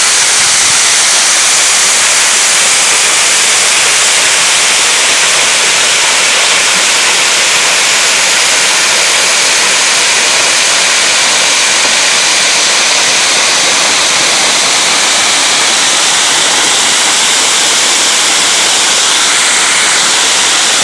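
Waterfall rushing, a loud, steady white-noise roar of falling water, bright and hissy with little low rumble.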